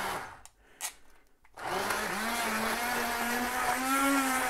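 Electric stick blender motor humming as it purees a pot of boiled chunky vegetables into a smooth curry base. It cuts out just after the start and starts up again about a second and a half in, its pitch wavering as it works.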